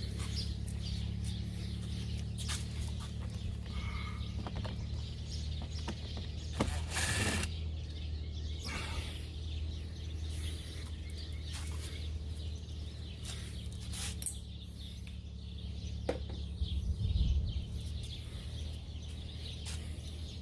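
Scattered clicks and taps of hand work on a car's door trim and handle, over a steady low hum.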